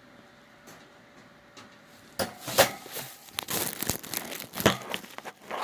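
Paper being crumpled and torn close by: a dense, irregular crinkling that starts suddenly about two seconds in, after a near-quiet start.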